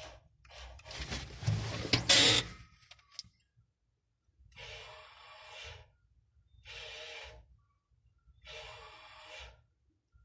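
A loud rustle early on, then a small electric motor whirring in short runs of about a second each, three times, starting and stopping sharply: the motorised valve actuator on a Biardzki 1200 field sprayer, worked from a push-button box in the cab.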